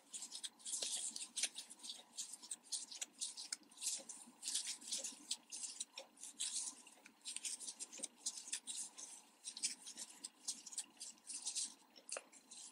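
Metal crochet hook and yarn rubbing and scraping as stitches are worked. Soft, short, irregular rustles and scratches come a few times a second.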